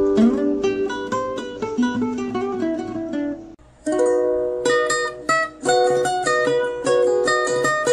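Background music: a quick tune picked on a plucked-string instrument, each note starting sharply and fading, with a brief break about three and a half seconds in.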